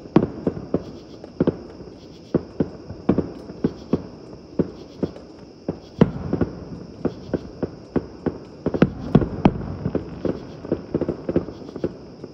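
Aerial fireworks shells bursting: an irregular run of sharp bangs, a few a second, with a quick flurry about two-thirds through.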